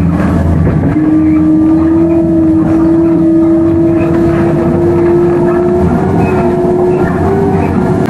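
Class 357 electric multiple unit on the move, with the rumble of its running gear under a steady whine from its traction motors. The whine starts about a second in and rises slowly in pitch as the train gathers speed.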